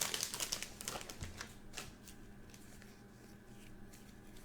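Faint clicking and crinkling of plastic card sleeves and supplies being handled, thinning out after about two seconds into quiet room tone.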